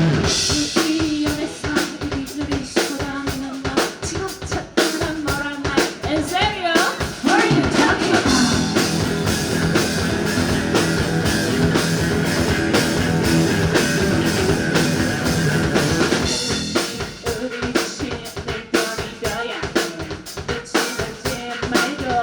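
Indie rock band playing an instrumental passage live, with the drum kit to the fore: kick, snare and rimshot hits under sustained guitar and bass. The middle of the passage fills out into a dense held wash of sound, and the drums stand out alone again near the end.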